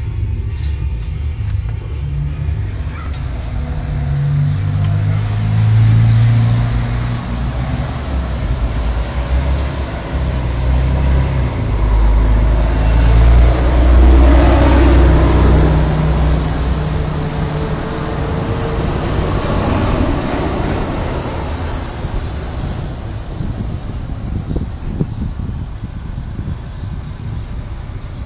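City bus passing along a wet street: engine rumble and tyre hiss swell to their loudest about halfway through as it goes by close, then ease off as it moves away. A few sharp clicks at the very start come from a door lock being turned.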